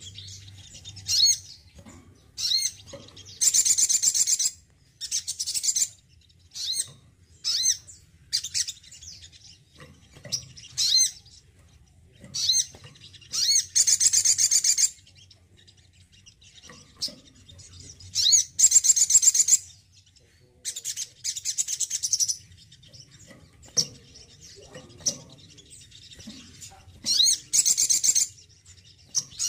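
Male sunbird singing: sharp, high single chirps mixed with bursts of rapid, high twittering about a second long, repeated with short pauses between them.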